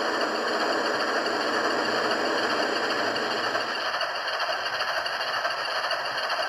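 Model diesel locomotive pair running, its DCC sound decoder playing diesel engine sound through a small speaker over the hum of its two 24-volt motors. A steady sound that eases off a little about four seconds in.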